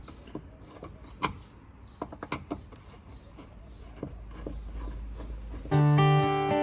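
Scattered clicks and knocks from handling the parts of a dismantled semi-automatic washing machine, over a low rumble. Near the end, acoustic guitar music starts loudly.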